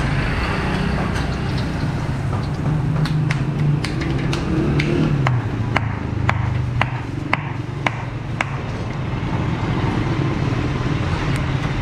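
Street traffic and a low engine hum, with a regular run of sharp taps at about two a second through the middle.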